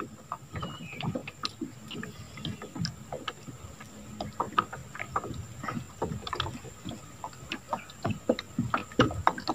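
Scattered light clicks and knocks, irregular and several a second, from fishing gear being handled in a small aluminium boat.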